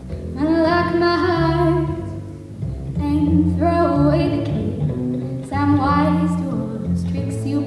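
Female jazz vocalist singing into a microphone in three phrases, over a plucked double bass and piano accompaniment.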